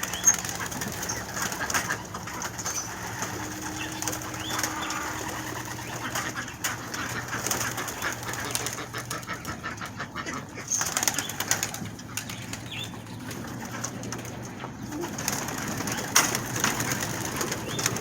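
Domestic pigeons cooing and flapping their wings, with a few short bursts of wing noise and rustling.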